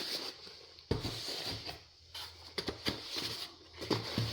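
Egg cartons being handled and set down on a table: light rustling with a few soft knocks, the sharpest about a second in and a cluster near the end.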